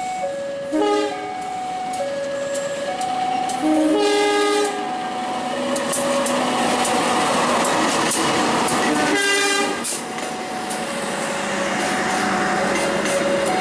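A level-crossing warning alarm sounds two alternating tones over and over. A diesel locomotive sounds its horn three times: briefly about a second in, longest and loudest around four seconds in, and again near ten seconds. From about five seconds the passenger train passes close by as a steady rush, with wheels clicking over the rail joints.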